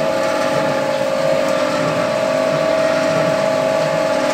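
Electric motor and reduction gearbox of a foam-concrete mixer running at a steady speed, with an even whine that holds one pitch.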